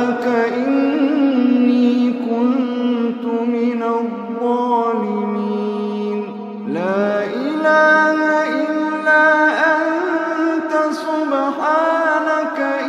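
Slow, ornamented melodic chanting: long held notes that bend and glide in pitch, with no pauses.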